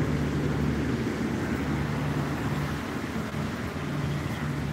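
Wind rumbling on a phone microphone outdoors after a rainstorm, with a low steady hum that fades in and out.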